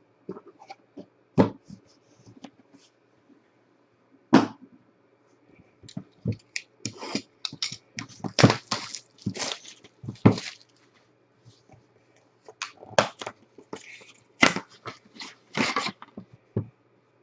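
Hands handling a cardboard trading-card box and its foam insert: irregular clicks, taps and knocks of cardboard being gripped, shifted and set down, sparse at first and coming thick and fast in two clusters, about six seconds in and again about twelve seconds in.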